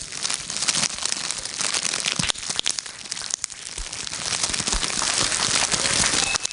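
Foley imitation of a crackling wood fire: magnetic tape and bubble wrap crumpled and popped by hand, giving a steady crackle of many small snaps over a hiss.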